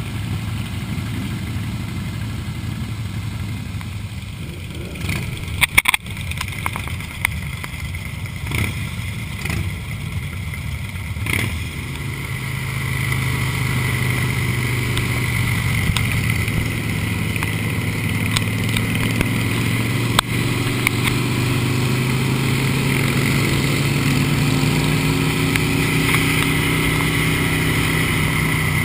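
Harley-Davidson V-twin motorcycle engine running at cruising speed, with wind noise on the mic. There are a few sharp knocks around six seconds in, and from about twelve seconds in the engine note grows louder and holds steady.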